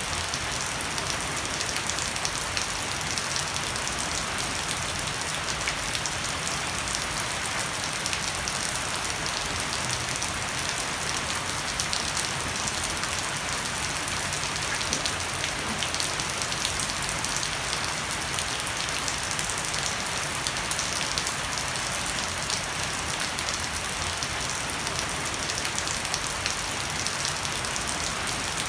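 Heavy rain falling steadily on a wooden deck and broad-leaved shrubs, with water streaming off the edge of a thatched roof. An even, dense hiss full of tiny patters, unchanging throughout.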